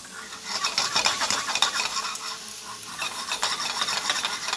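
Metal tongs stirring and scraping sautéing vegetables in a hot stainless steel skillet, with quick irregular clicks of metal against the pan over the sizzle of the frying food.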